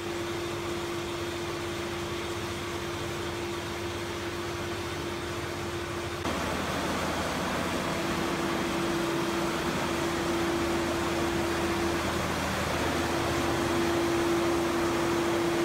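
1985 Toyota pickup's 22R four-cylinder engine idling steadily after a cold start in sub-zero cold, with an even whine on top that drops out briefly about six seconds in.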